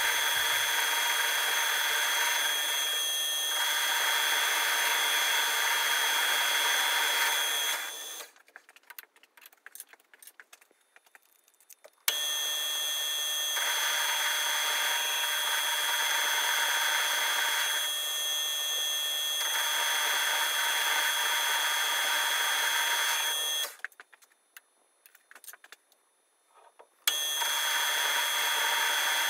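Metal lathe turning a steel rod: a steady cutting noise with a constant high whine as the tool smooths the bar, which the machinist takes as the sound of really bad quality steel. The sound breaks off twice for a few seconds.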